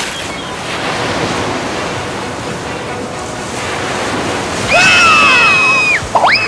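Steady rushing noise like surf or sloshing water. Near the end a loud, high, whistle-like tone is held for about a second, then a quick squeak dips and rises in pitch.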